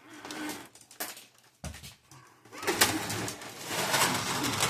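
Plastic and metal parts of a partly dismantled inkjet printer being handled: a sharp knock about a second and a half in, then a couple of seconds of clattering and rattling.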